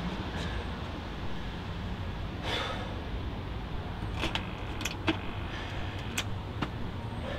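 Scattered sharp clicks and knocks of a glass-paned entrance door being tugged at its handle and intercom bell buttons being pressed, over a steady low outdoor rumble.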